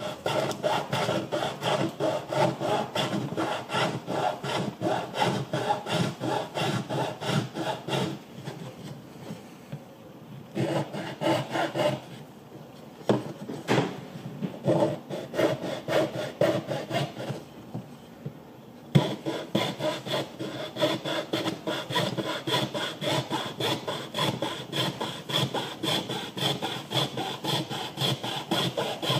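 Fine-toothed hand saw cutting through a small strip of wood in quick back-and-forth strokes, stopping briefly a few times.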